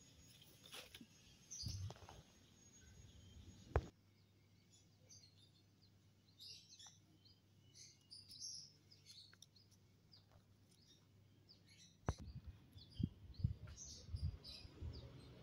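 Faint, scattered high chirps of small birds, with a few sharp knocks and scuffs near the start and again near the end.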